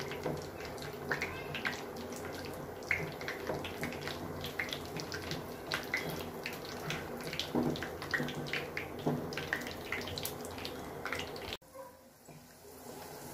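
Cashew nuts frying in hot ghee in a pan: a steady sizzle with many scattered crackles and pops. The sound drops off sharply near the end.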